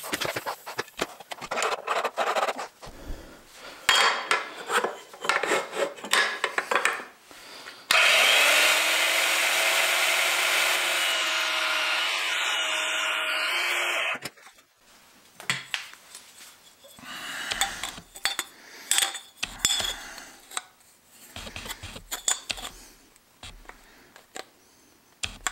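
Mini bandsaw switched on about eight seconds in, its motor hum rising briefly as it spins up and then running steadily while it cuts square metal tubing. It shuts off abruptly about six seconds later. Before and after the cut there are clicks and rubbing from parts and tools being handled.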